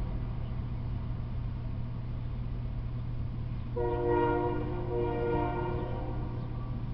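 Locomotive air horn sounding a chord of several tones, one blast of about two seconds starting about four seconds in, over a steady low rumble.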